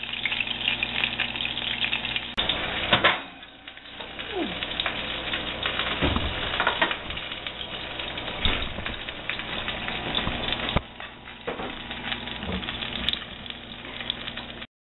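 Chicken breast frying in oil in a nonstick skillet: a steady sizzle, with a few sharp knocks along the way.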